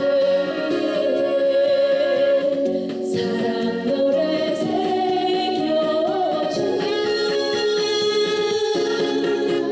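Trot song performed live through a sound system: a woman singing over backing music with guitar.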